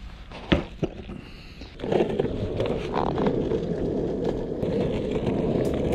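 A skateboard is set down with a couple of sharp clacks. From about two seconds in its wheels roll steadily on the asphalt road as it is ridden.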